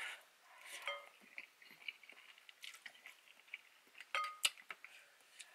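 Close-up eating sounds from a bowl of cheesy ramen: a utensil clicking and clinking against the dish, with soft wet chewing of noodles. The sharpest clinks come about four seconds in.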